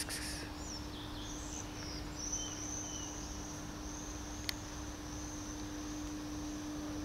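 Outdoor ambience: a thin, steady high-pitched insect trill that comes in about two seconds in and fades near the end, with a few faint short chirps and a low steady hum underneath. A single sharp click about halfway through.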